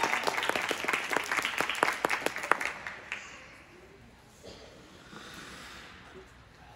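Clapping from a small audience in an ice rink, a quick patter of hand claps that thins out and dies away about three seconds in, leaving the quiet of the rink.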